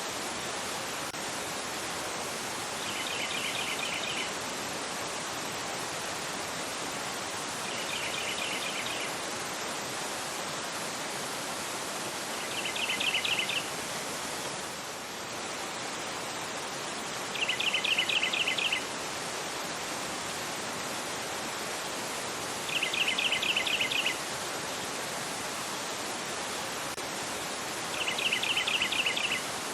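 River water rushing fast over a rocky bed in a steady, even roar of noise. A bird's short rapid trill cuts through it six times, about every five seconds.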